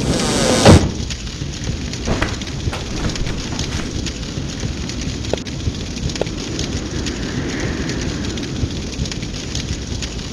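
Storm sound effect: a sudden loud thunder-like crash in the first second, then steady rain-like rushing with scattered crackles and clicks.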